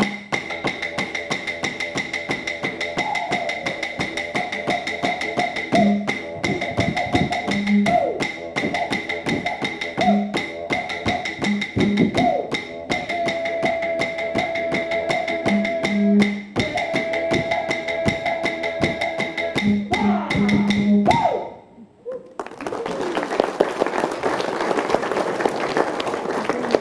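Didgeridoo drone under clapsticks beating a steady rhythm, the traditional accompaniment to an Aboriginal dance. The music stops about 21 seconds in and applause follows.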